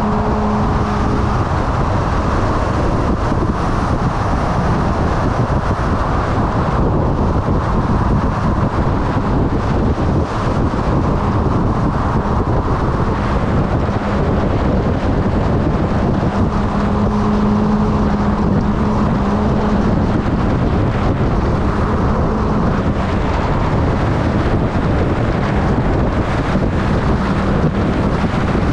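Motorcycle riding at a steady speed: steady wind rush over the microphone, with the engine's low hum showing through now and then.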